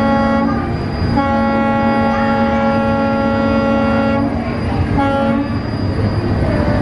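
A horn blowing a steady low note over a steady rumble: the tail of one blast, then a long blast of about three seconds, then a short one.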